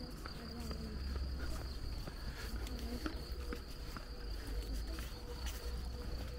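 Footsteps of people walking on an asphalt street, heard as scattered light clicks, over a constant low rumble and a steady thin high-pitched tone.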